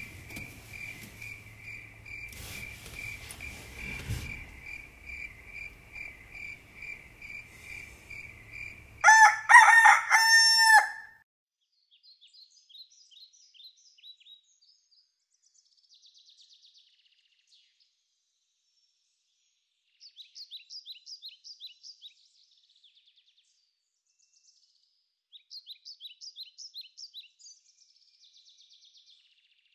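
Crickets chirping in a steady pulsing trill until about nine seconds in, when a rooster crows loudly for about two seconds. After it, faint short songbird trills come and go twice.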